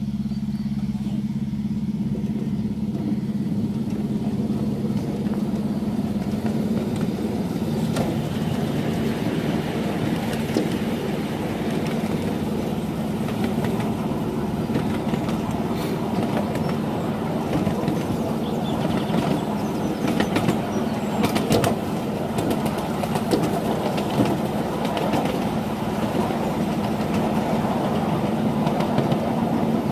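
Miniature railway diesel locomotive running steadily, then pulling away a couple of seconds in and hauling the ride-on passenger carriages, heard from a seat in the train. From about eight seconds on, the wheels click over the rail joints.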